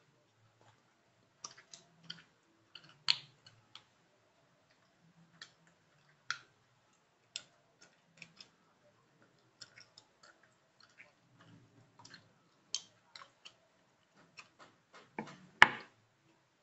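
Chewing gum smacked and snapped close to the microphone: irregular sharp clicks and pops with short gaps between them, and one louder snap near the end.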